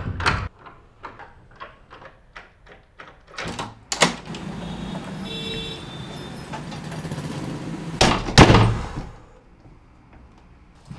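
Footsteps approaching, then keys clicking in a front-door lock and the door opening with a steady rush of outside air. About eight seconds in, the door is shut with two heavy thuds, the loudest sounds.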